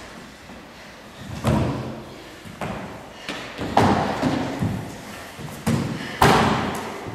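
Thuds of a choreographed stage-combat fight: feet and bodies hitting a studio floor as one fighter is taken down. About half a dozen sudden impacts, each echoing in the large hall, the loudest a little after six seconds in.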